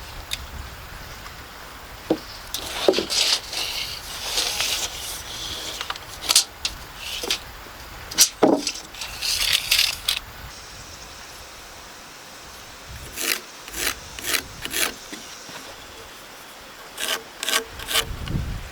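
Intermittent scraping and rubbing, in short bursts in the first half, then clusters of sharp clicks and knocks.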